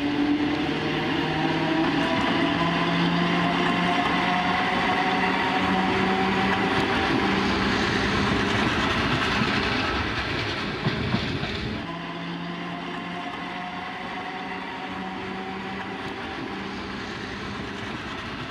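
A vintage metre-gauge electric train passing close by, its traction motors giving a slowly rising whine over wheel and running noise as it gathers speed. About twelve seconds in, the sound drops to a quieter, more distant run of the train, with the whine rising again.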